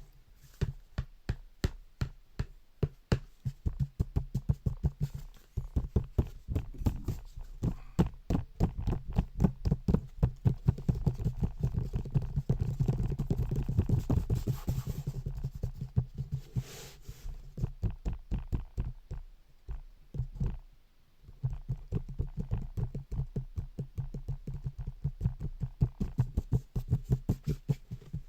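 Rapid tapping, several strokes a second, performed as a home-made sound effect. It thickens into a louder, denser stretch in the middle, and a short hiss comes about 17 seconds in.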